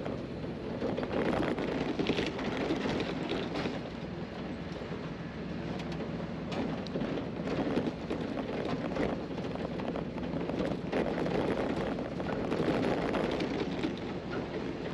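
Toyota Land Cruiser driving over a rutted dirt track: steady engine and tyre noise with frequent knocks and rattles from the rough ground.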